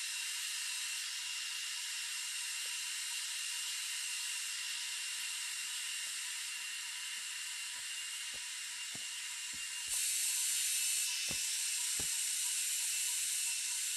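Steady high hissing with scattered soft clicks and pops, briefly louder for about a second around ten seconds in.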